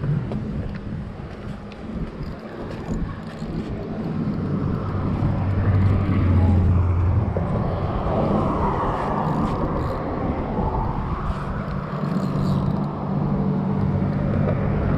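Road traffic passing on the bridge: a continuous engine and tyre hum with steady low engine tones, swelling around the middle.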